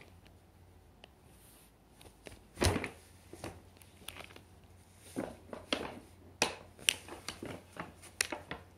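Paper bag crackling and rustling as a cat inside it moves and swats at a fluffy cat teaser. Quiet for the first couple of seconds, then one loud crackle, then a quick run of short, sharp crackles in the second half.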